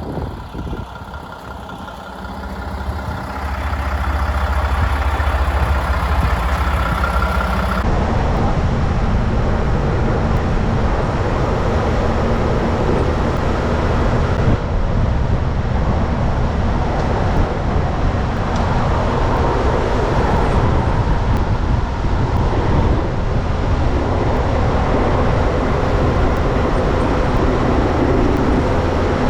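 Heavy snowplow truck's diesel engine running with road and cab noise, getting louder a few seconds in and then holding steady.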